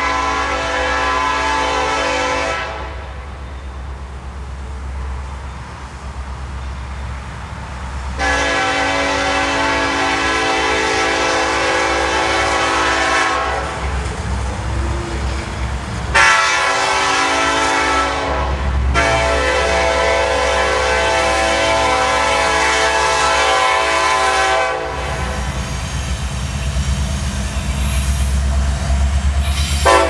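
BNSF SD70ACe lead locomotive's air horn sounding in a long, long, short, long pattern, over the low drone of its diesel engine working hard in Notch 8. Near the end the wheels start clicking over the rail joints as the locomotive reaches the camera.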